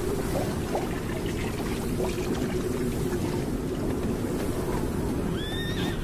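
Steady low wind noise across open desert, with a short, high, rising tone near the end.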